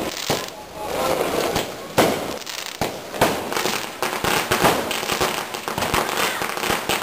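Aerial fireworks bursting and crackling: a dense, rapid crackle with a few louder bangs among it.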